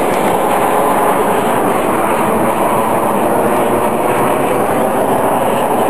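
Steady jet noise from a Snowbirds Canadair CT-114 Tutor's turbojet engine as the aircraft flies overhead, an even, unbroken noise with no clear rise or fall.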